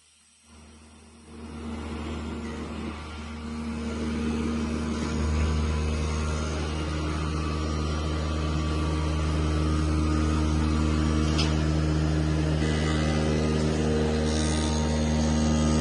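CNC foam cutting machine starting up about half a second in and running up to a steady mechanical hum with several steady tones.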